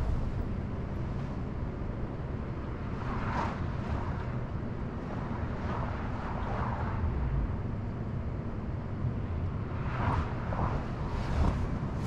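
Distant road traffic: a steady low rumble, with short swells of noise about three and a half seconds in, around six and a half seconds in, and twice between ten and eleven and a half seconds in.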